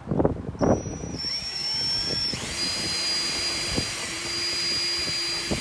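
A power tool's motor starts about half a second in and runs steadily with a high whine.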